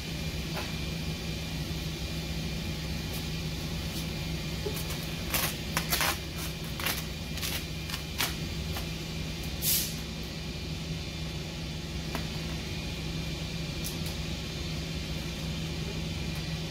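Short rustles and crackles of 3M 180mC cast vinyl wrap film being pulled and pressed down onto a boat hull, a cluster of them in the middle, over a steady low hum.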